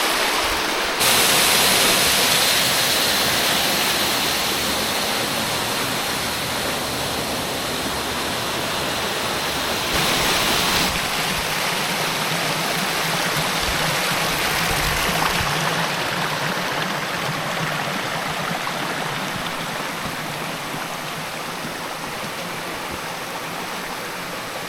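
Small waterfall and creek rushing hard, full of water after a week of rain; a steady, dense roar of falling water that jumps in level abruptly a couple of times.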